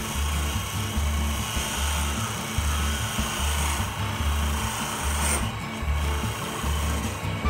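Miniature wood lathe running while a hand-held tool cuts the spinning wooden workpiece, giving a steady scraping hiss that breaks off briefly about five and a half seconds in. Background music with a regular bass beat plays over it.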